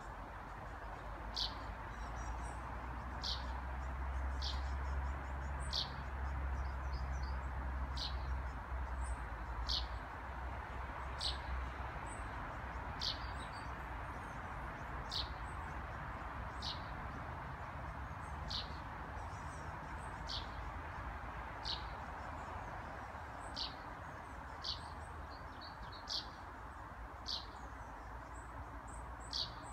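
Eurasian tree sparrow repeating a short, sharp call about every second and a half: its contact and alarm calls. Fainter twittering lies higher above it, over a steady background rush.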